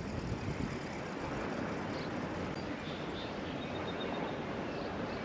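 Steady rush of strong wind on the microphone, with no distinct events.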